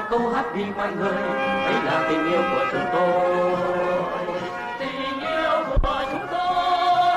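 A male vocal group singing a song together, holding long notes. A brief low thump cuts in about six seconds in.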